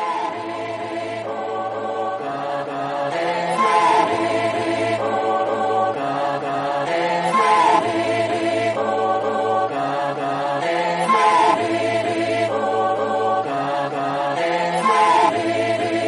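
Background music: a sustained choir-like vocal pad over a bass line, with a short sliding vocal phrase that repeats about every four seconds.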